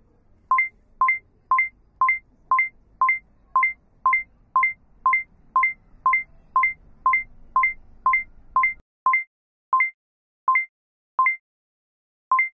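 Electronic alert beeping: a short, high, identical beep about twice a second, the beeps spacing out and slowing near the end.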